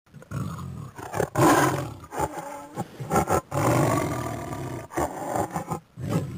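A lion roaring in a run of about seven short calls with brief breaks between them.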